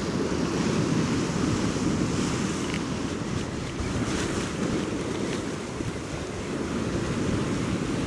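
Wind buffeting the microphone over the steady wash of sea waves on a rocky shore.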